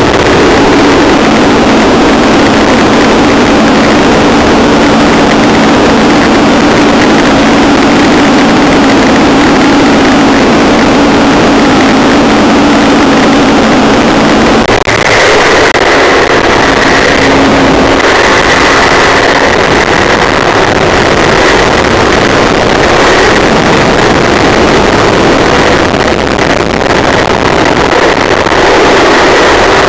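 Paramotor (powered paraglider) engine running steadily in flight, with a loud rushing noise of air over the microphone. Its note changes abruptly about halfway through.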